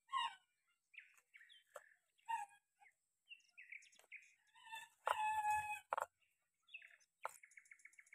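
Birds chirping and calling, with a rooster crowing once about five seconds in for about a second. A quick trill of rapid repeated notes comes near the end.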